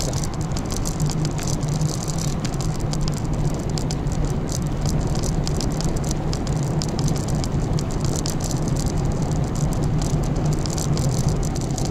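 Bicycle rolling along a road: a steady rumble of tyres and wind with a continuous fine rattle from the loaded bike.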